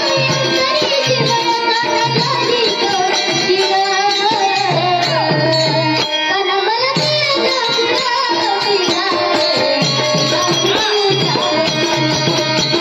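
Bhajan music: tabla drumming in a steady rhythm with harmonium, small hand cymbals (taal) and a girl singing.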